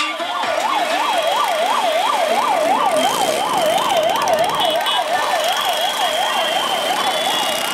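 Ambulance siren yelping, a fast up-and-down wail about three times a second, a little fainter near the end.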